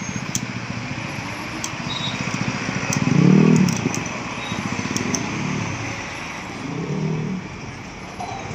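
Roadside traffic with vehicles passing over a steady road noise. The loudest pass swells about three seconds in, and a smaller one comes around seven seconds.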